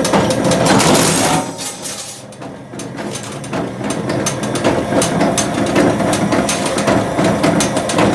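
CNC plate-cutting machine at work on metal plate: busy mechanical clatter with rapid irregular clicks, dropping briefly in level about two seconds in.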